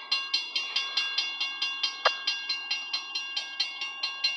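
Railroad grade-crossing bell ringing rapidly and evenly, about four to five strikes a second, each strike ringing out. A brief squeak cuts in about two seconds in.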